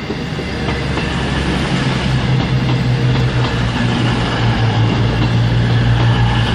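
Class 221 Super Voyager diesel-electric unit arriving, its underfloor diesel engines giving a steady low drone that grows slowly louder.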